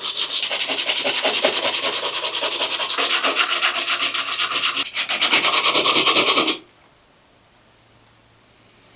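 Sandpaper rubbing quickly back and forth on a thin wooden arrowhead, about five strokes a second, in a steady rhythm that stops abruptly about two-thirds of the way through; quiet room noise follows.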